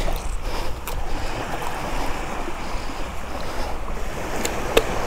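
Surf washing on the beach with wind buffeting the microphone, and a few light clicks near the end.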